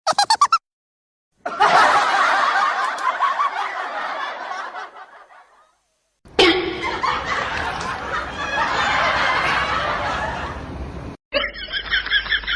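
People laughing and snickering in a series of short clips, each cut off abruptly: a quick burst of giggling at the start, two long stretches of laughter, the second starting suddenly loud about six seconds in, and pulsing laughter near the end.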